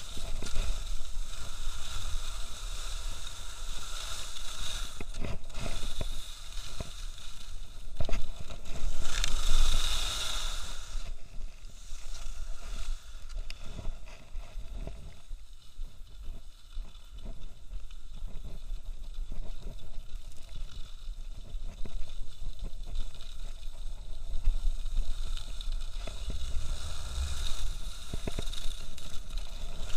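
Skis running and turning on a groomed piste, the edges scraping and hissing on the snow, with wind rumbling on the camera microphone. The scraping swells to its loudest about eight to ten seconds in.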